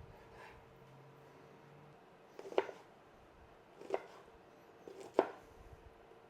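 Knife chopping on a cutting board: three separate chops, each a short scrape ending in a sharp knock, about a second and a quarter apart, over a faint steady hum.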